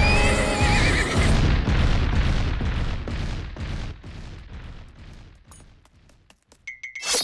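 Cartoon sound effects: a high, wavering whinny-like cry, then a loud rumbling clatter that fades away over several seconds. A short sharp sound comes near the end.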